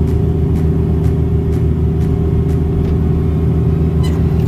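Diesel engine of a Caterpillar 305 mini excavator running at a steady speed, with faint clicks about twice a second.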